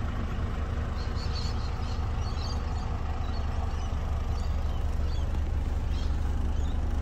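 2020 Isuzu FSR truck's 260-horsepower intercooled turbo-diesel idling steadily, heard from inside the cab. It is a nice, quiet idle.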